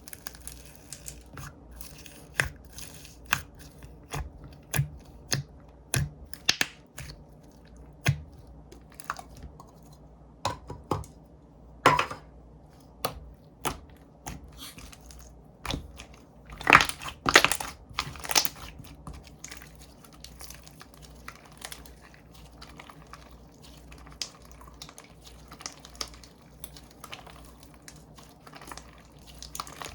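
Slime being squeezed, stretched and folded by hand, giving irregular sharp clicks, pops and crackles. A quick cluster of louder pops comes a little past the middle, and the handling grows softer toward the end.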